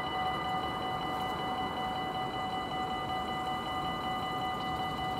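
Dutch level crossing warning bell ringing steadily in rapid, even strokes, signalling an approaching train while the barriers are down.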